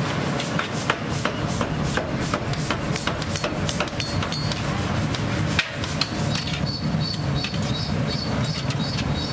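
Hand hammer striking a red-hot bolt blank on an anvil block to forge its head, in repeated blows about two a second, over a steady low hum.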